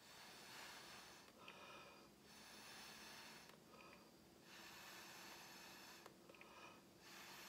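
Soft, repeated puffs of breath blown through a drinking straw onto wet acrylic paint to spread the pink cell activator into a bloom: about four blows, one roughly every two seconds, with short breaths drawn in between.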